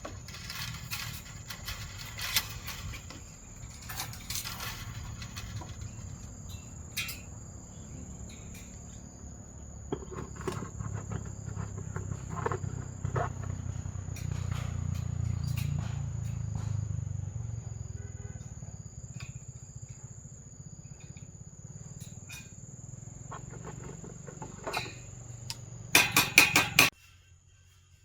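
A steady high insect trill of crickets runs throughout, with scattered knocks and taps from work on a timber frame. A low rumble swells in the middle. Near the end comes a rapid run of loud knocks, then the sound cuts off.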